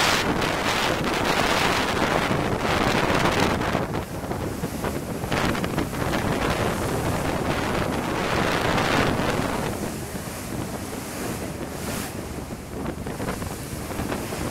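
Wind buffeting the microphone on a ferry's open deck over the rush of the hull's wash foaming along the ship's side. The gusts are strongest in the first few seconds and ease off about two thirds of the way through.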